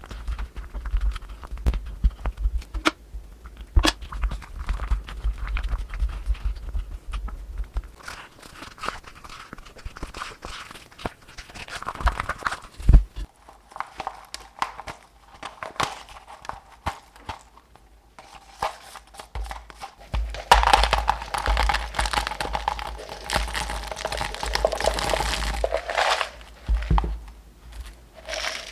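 Close-up hand handling noises: crinkling and tearing with scattered taps and knocks. About two-thirds of the way through, a louder, denser stretch of rustling lasts around five seconds, with a faint steady tone beneath it.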